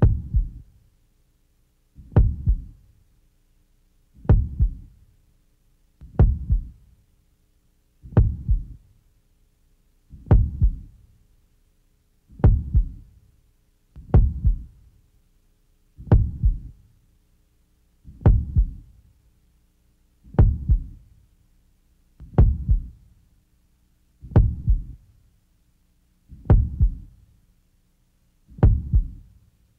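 Slow heartbeat sound effect: a low double thump, lub-dub, repeating evenly about every two seconds.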